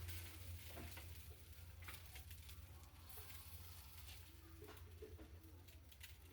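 Near silence: a low steady hum with a few faint clicks.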